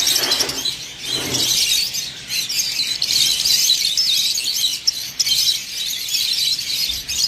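Many small caged birds chirping and chattering at once, a dense, continuous high-pitched twittering.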